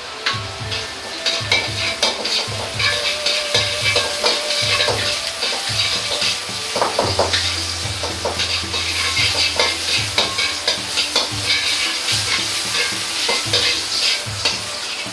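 Ginger slices sizzling in a little hot oil in a wok. A metal ladle scrapes and taps against the wok again and again as they are stirred.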